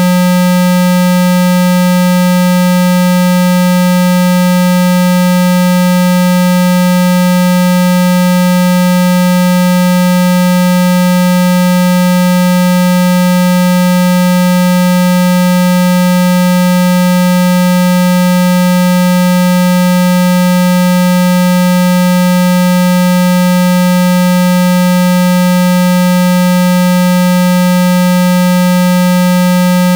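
A synthesized 195 Hz water-eject tone: one steady, loud, unbroken low buzzing pitch with fainter higher overtones, played through a phone speaker to shake trapped water out of it.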